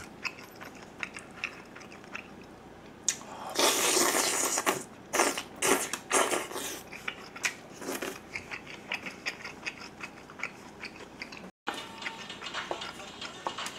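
Close-up eating sounds: chewing with many small wet mouth clicks, and a loud slurp of stew broth from a spoon a few seconds in, followed by a few shorter slurps.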